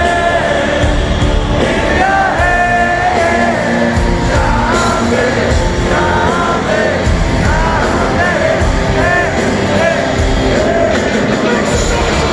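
Live heavy metal band playing loud, with a lead singer singing a sustained melodic line over the full band, heard close to the stage through a big arena sound system.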